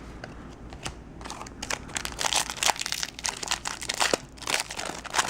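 Foil wrapper of a Yu-Gi-Oh! booster pack crinkling as it is torn open by hand, an irregular crackling that thickens about a second in.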